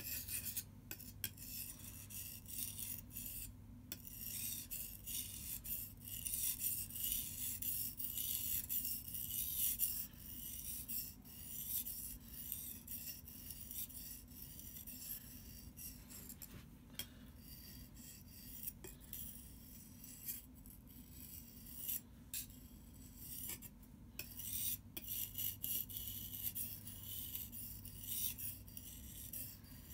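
Survival knife blade being drawn back and forth over a wet whetstone: a continuing series of gritty scraping strokes with brief pauses between them.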